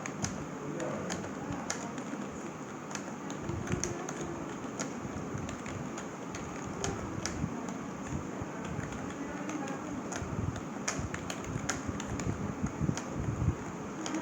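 An old membrane computer keyboard being typed on: irregular soft key clicks, at times several a second, over a steady background hiss.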